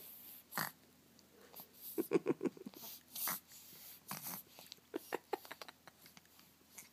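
A baby sucking noisily on its fingers: a string of short wet sucking clicks and smacks, coming in a quick run about two seconds in and again around five seconds.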